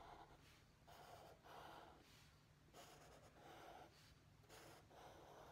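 Faint scratchy strokes of a black permanent marker on paper as a zigzag line of small triangles is drawn, one short stroke every half second to second.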